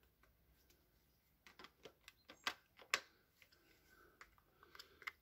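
Irregular clicks and knocks of hard plastic housing and metal gearbox parts of a disassembled DeWalt DCH273 SDS hammer drill being handled and pulled apart. They start about a second and a half in, with the loudest knock near three seconds.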